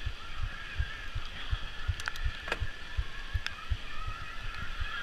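Trek Slash 8 mountain bike descending wet, rough singletrack: frequent low thumps and jolts as it rolls over the trail, a few sharp clicks and knocks, and a wavering high squeal running throughout.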